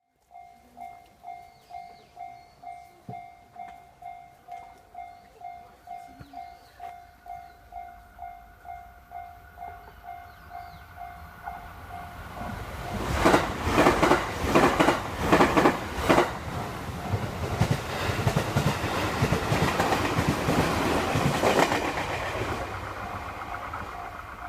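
Japanese railroad crossing warning bell clanging about twice a second. About 12 seconds in, an electric train on the JR Sagano Line passes over the crossing, loud, with its wheels clacking over the rail joints. The train noise then fades away near the end.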